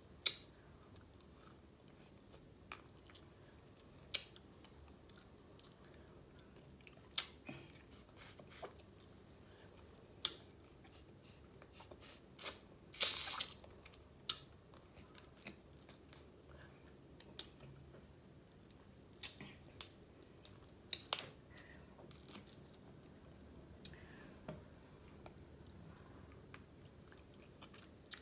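Close-up chewing of snow crab meat, with scattered short clicks and crunches of crab shell and one longer crunching burst about 13 seconds in.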